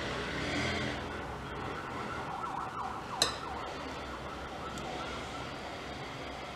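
Low background with a faint wavering tone, and a single sharp clink about three seconds in: a metal spoon against a glass mixing bowl.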